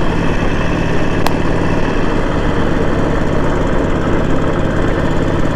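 Harley-Davidson Sportster 1200's air-cooled V-twin engine running steadily while riding, its pitch holding even throughout. A brief sharp click about a second in.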